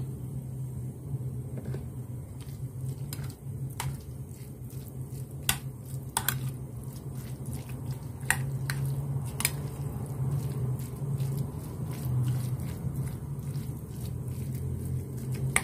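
A metal spoon stirring and pressing mashed tofu and chopped dried shrimp in a glass bowl: soft squishing with scattered sharp clicks of the spoon against the glass. A steady low hum runs underneath.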